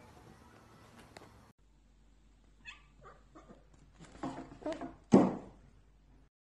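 Two cats fighting: a run of short yowls and growls starting about two and a half seconds in, growing louder to one loud cry near the end, then cutting off suddenly.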